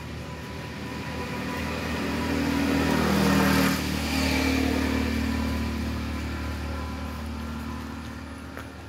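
A motor vehicle driving past on the road: its engine and tyre noise swell to a peak about three and a half seconds in, the engine note drops as it passes, and then it fades away slowly.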